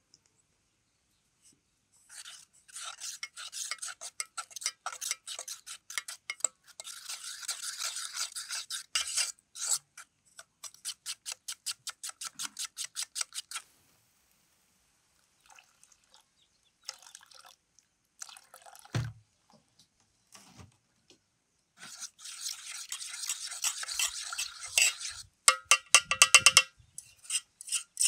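Metal fork beating a thick batter in an aluminium bowl: runs of quick, rhythmic scraping and tapping strokes against the bowl, broken by short pauses.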